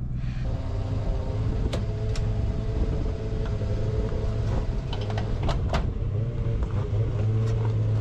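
Gas-station fuel pump running with a steady hum over a low wind rumble on the microphone, with a few sharp clicks scattered through.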